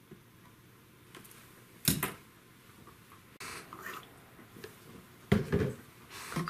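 Bench handling noises: a sharp knock about two seconds in, some rustling, then a louder clatter and another knock near the end, as the soldering iron and solder are lifted away from the board and set down.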